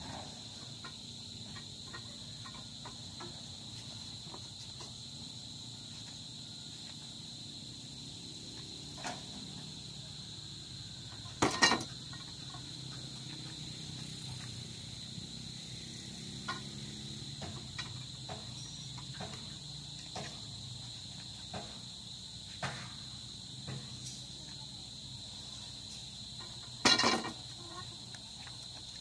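Steady high-pitched insect chirring, with metal clanks as a long metal pipe is worked as a lever against metal: two loud clusters of clanks about 11 and 27 seconds in, and lighter taps and clicks between.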